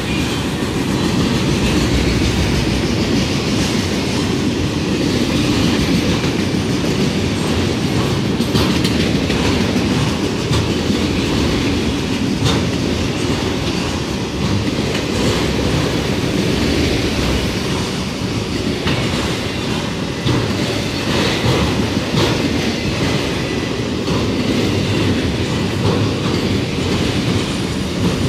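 Autorack freight cars rolling steadily past close by: a continuous rumble of steel wheels on the rails with scattered sharp clicks as the wheels pass.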